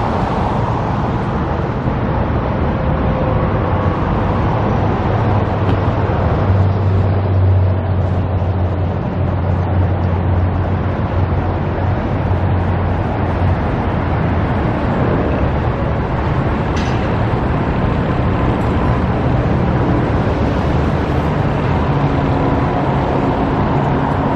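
Road traffic noise, with a heavy engine rumbling low for several seconds in the middle.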